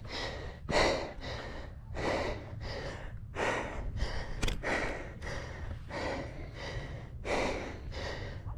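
Heavy, rapid panting and gasping breaths, roughly one or two a second, from a person out of breath after running up a steep sand dune.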